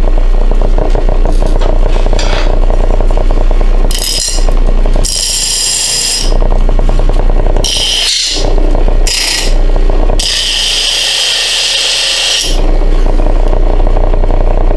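Old 1/6-horsepower, 1725 RPM bench grinder running with a steady low hum, back in working order after rewiring. Several times something is held against the wheel, each contact a harsh, hissing grind; the longest lasts about two seconds, near the end.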